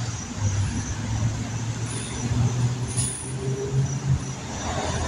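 Street traffic: motor vehicles running on a road, a steady low engine rumble under a haze of road noise.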